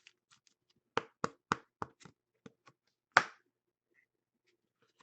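A series of sharp taps and clicks, about seven in two seconds, then one louder tap a little after three seconds in: trading cards being handled and tapped down on a tabletop.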